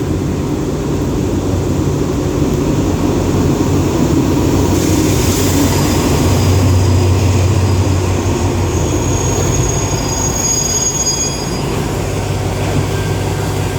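Alsthom diesel-electric locomotive and its train of passenger cars rolling through the station, with a steady low engine hum. Thin, high wheel or brake squeals come in during the second half.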